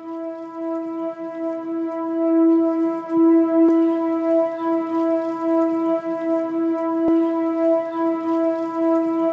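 A sustained warning tone held on one unchanging pitch, rich in overtones, loud and steady with a slight waver in loudness.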